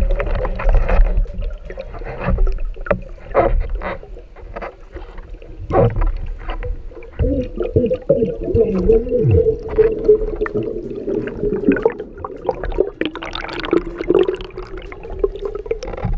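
Underwater sound as picked up by a diving camera: rushing, bubbling water with scattered clicks and knocks. From about seven seconds in a steady hum sets in, with low sliding tones for the next couple of seconds.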